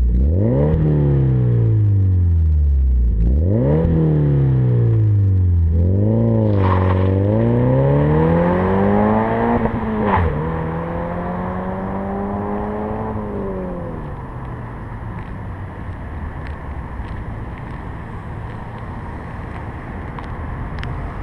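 Scion FR-S's flat-four engine through a BlackHeart cat-back dual-exit exhaust: two quick revs that each sink back slowly, then the car pulls away accelerating up through the gears, with a shift about ten seconds in. It fades with distance, leaving faint distant engine noise and a few light clicks near the end.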